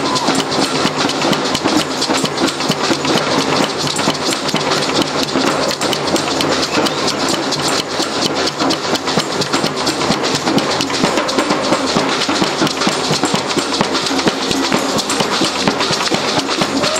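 Live fanfare (brass-and-percussion street band) music, carried by fast, steady drumming.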